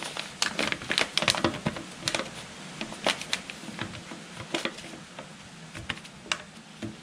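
A sheet of paper crinkling and rustling as fingers press and rub it against a turbocharger flange to mark out a gasket template. The sound is an irregular run of light crackles and taps.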